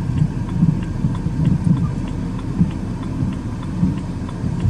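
Vehicle engine idling as a low, uneven rumble pulsing a few times a second, with faint scattered ticks over it.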